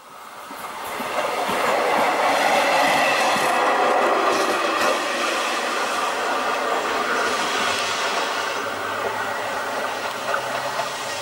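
A passenger train running past. The noise swells up over the first two seconds and then slowly eases off, with a low steady hum joining about two-thirds of the way through.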